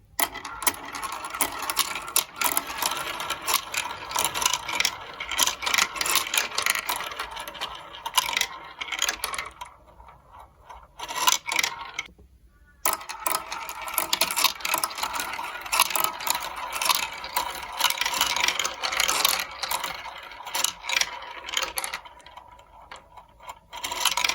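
Marbles rolling and clattering through a building-block marble run: a dense rattle of rapid clicks, broken by short near-silent gaps about ten and twelve seconds in.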